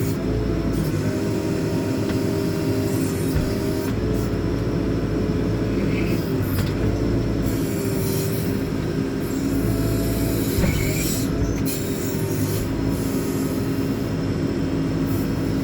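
JCB 4CX backhoe loader's diesel engine running under load, with a steady hydraulic whine whose pitch and the engine's note shift every second or two as the rear backhoe boom is worked.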